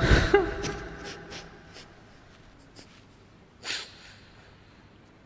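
A man weeping in the middle of a Quran recitation: his voice breaks off in a brief catch at the start, then near-quiet with a few faint clicks. About three and a half seconds in comes one short, sharp breath, like a sniff.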